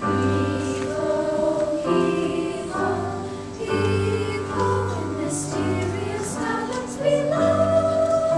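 Slow keyboard introduction to a song: sustained chords over low bass notes that change about once a second, with no words yet sung.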